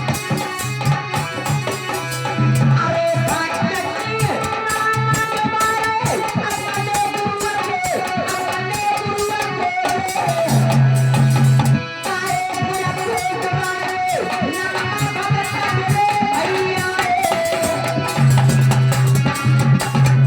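Devotional folk song music: a melodic lead line over drums, with the low drum part dropping out for a few seconds at a time.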